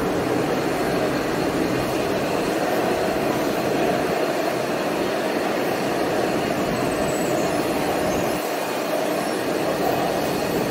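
Metro train running between stations, heard from inside the carriage: a steady rumble of running noise from the wheels and rails, with a faint steady high tone above it.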